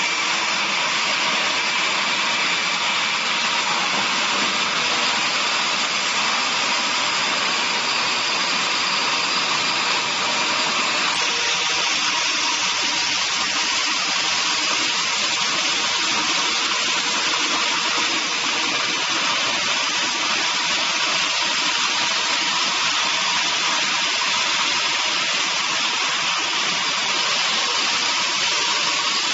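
Five-head horizontal band saw resaw running, its band blades sawing timber into planks, a steady hiss with a faint hum.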